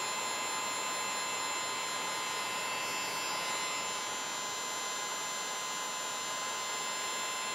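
Electric heat gun blowing steadily: a constant rush of air with a thin steady whine, as it shrinks clear heat-shrink tubing over a soldered wire splice.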